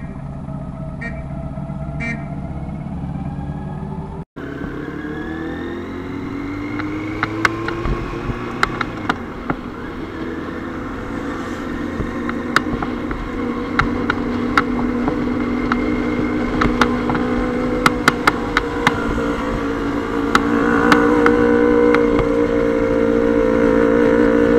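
Motorcycle engine running while riding, its pitch rising as it accelerates about five seconds in and then holding steady, with frequent sharp ticks over it.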